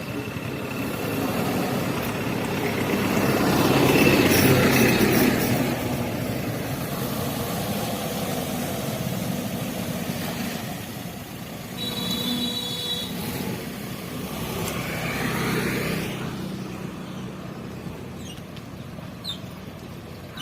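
Alto K10 car engine running as the car drives over a rough obstacle, swelling louder twice, about four seconds in and again near sixteen seconds. A short high beep comes about twelve seconds in.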